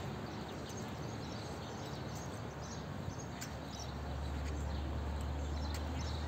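Steady outdoor background noise with faint, scattered short high chirps. A low rumble comes in about four seconds in and stays.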